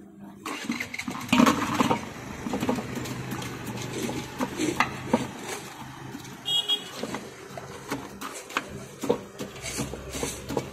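Outdoor street background with repeated clatter and knocks, like metal utensils, and a brief high tone about six and a half seconds in.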